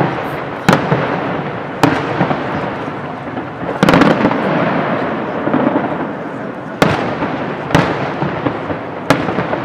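Aerial firework shells bursting overhead: about six sharp booms, spaced one to three seconds apart, each trailing off in a long rolling rumble that runs into the next.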